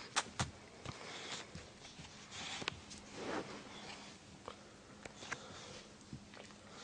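A small dog sniffing and snuffling close to the microphone, among scattered light clicks and rustles.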